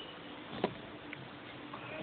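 Faint room noise with a steady low hum, broken by one sharp click about two thirds of a second in and a fainter tick a moment later.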